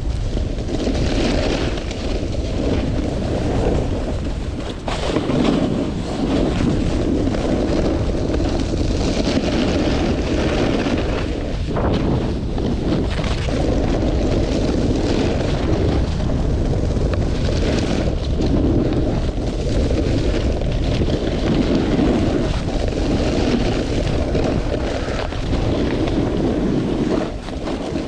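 Wind rushing over the microphone during a fast run down a groomed ski slope, with the hiss of snow under the rider's edges swelling and fading every couple of seconds as they turn.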